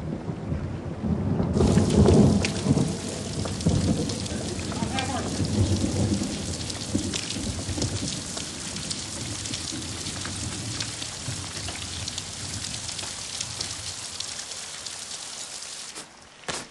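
Thunderstorm: a loud rumble of thunder in the first few seconds, over steady heavy rain that goes on until it cuts off suddenly near the end.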